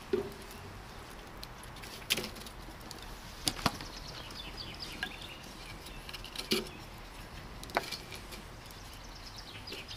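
Pieces of split firewood being tossed onto a wood fire in a metal mangal: about six short, sharp wooden knocks, one every second or two.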